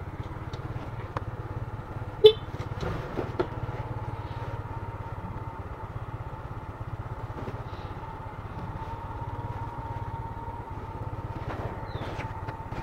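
Motorcycle engine running steadily at low speed, with one short sharp beep about two seconds in.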